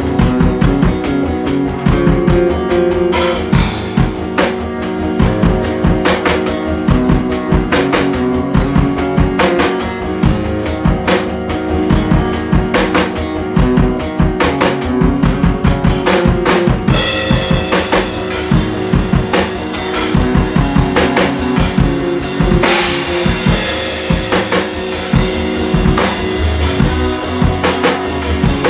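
Live band jam: a guitar playing over a drum kit's steady kick-and-snare beat, getting brighter and busier about 17 seconds in.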